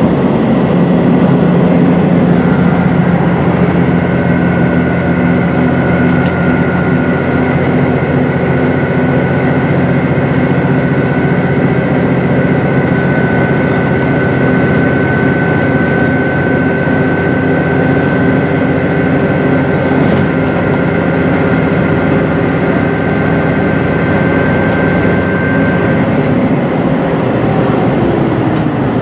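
Cabin running noise of a HOT7000 series diesel railcar: the underfloor diesel engine drones steadily under power, with a steady high whine over it. Near the end the whine stops and the engine note falls as the revs drop.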